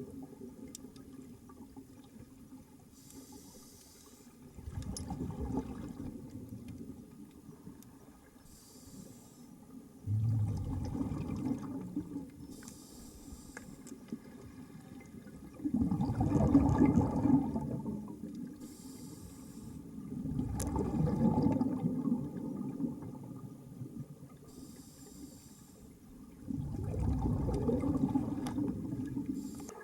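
Scuba diver breathing through a regulator underwater. Each inhale is a short, faint high hiss from the demand valve, and each exhale is a louder rumbling burst of exhaust bubbles. There are five such breaths, one every five to six seconds.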